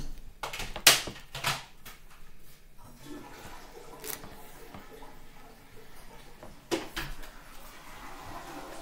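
A few sharp knocks and clicks, three close together in the first second and a half (the loudest about a second in), then single ones near the middle and near the end, over faint background noise.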